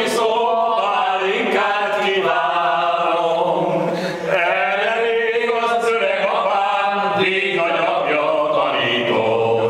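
Men singing without accompaniment: a slow tune in long held notes with vibrato, with a short break about four seconds in.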